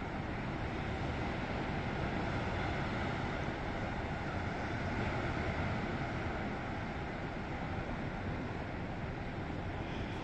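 Steady rush of wind on the microphone mixed with ocean surf breaking below, an even noise without distinct events.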